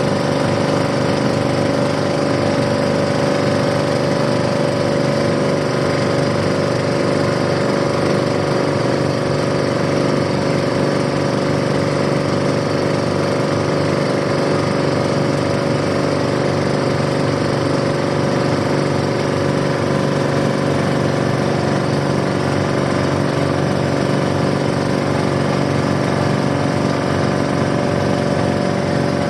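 Boat engine running steadily at a constant speed, a loud, even chugging drone throughout.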